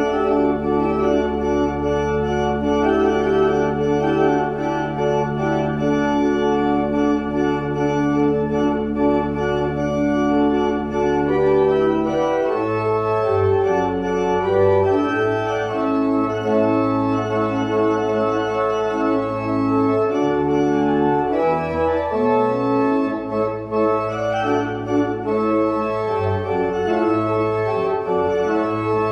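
Organ playing a closing voluntary: sustained chords over long-held bass pedal notes, the bass beginning to move more often about twelve seconds in.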